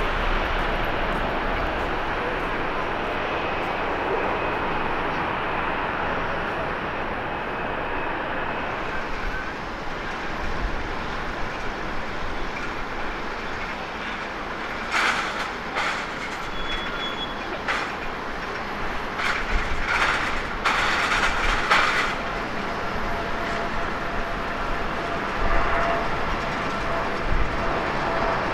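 Jet engine noise from an Airbus A350-900's Rolls-Royce Trent XWB engines as it climbs out after takeoff. About nine seconds in this gives way to steadier jet engine noise from a Boeing 787-8 on the runway, starting its takeoff roll. A run of sharp clicks comes in the middle.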